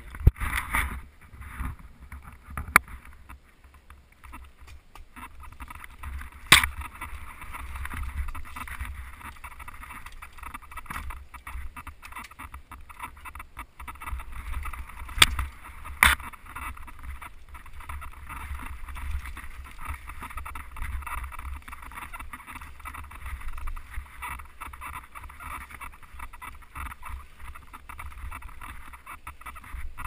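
Mountain bike ridden fast down a dirt singletrack, heard from a camera mounted on the bike: a steady rush of tyre and riding noise with a low rumble, broken by several sharp knocks, two close together about halfway through.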